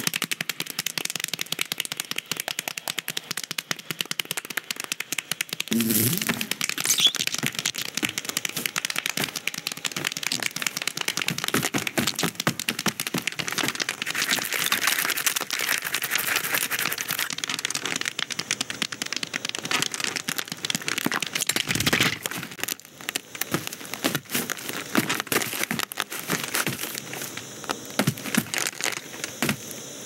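Sound-effects track of an animated film with the dialogue and music stripped out: a steady, dense crackle of small clicks, with a louder thump about six seconds in.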